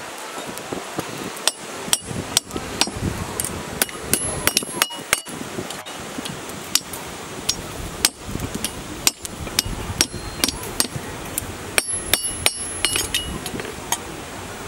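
Blacksmith's hand hammer striking hot iron held in tongs on an anvil: sharp, ringing metallic blows in irregular runs, starting about a second and a half in.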